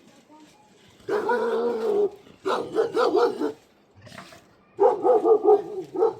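A dog barking and crying in three loud bouts of about a second each: a held cry first, then two runs of quick repeated barks.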